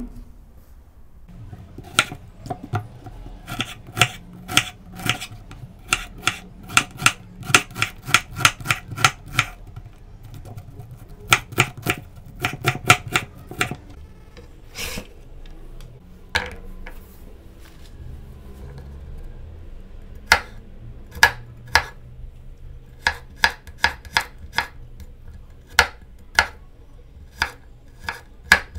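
Kitchen knife chopping on a bamboo cutting board: a quick run of sharp strikes dicing an onion, then, about halfway, slower and sparser strikes mincing garlic cloves.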